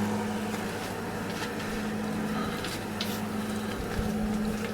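An electric motor that has just spun up, running with a steady hum, with a few faint clicks and knocks over it.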